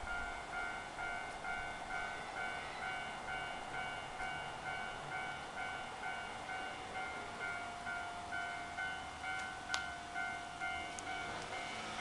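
Japanese railway level-crossing warning bell ringing: an electronic two-tone ding repeating evenly about one and a half times a second, signalling that a train is coming. A single sharp click sounds about ten seconds in.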